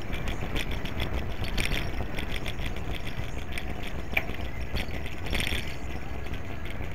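Riding noise of a bicycle in motion: a steady low rumble of wind and tyres on pavement, with frequent small irregular rattling clicks.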